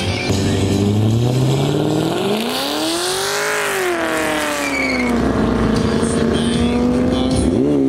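A race car's engine accelerating hard, its pitch climbing to a peak about three and a half seconds in and then falling away as it goes by. The note holds steady for a few seconds, then dips briefly and climbs again near the end.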